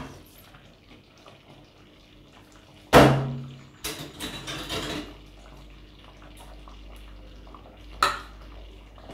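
Pot lid and cookware clattering: one loud metallic clank with a short ring about three seconds in, then a run of lighter clinks and scrapes. A short knock comes near the end over a low steady hum.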